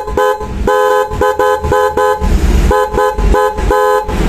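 A pair of Flosser snail-shell electric horns, high and low tone sounding together, tooted in many quick short blasts with a brief pause a little past halfway. The horns rest against the body instead of hanging free, which makes the sound come out less fully.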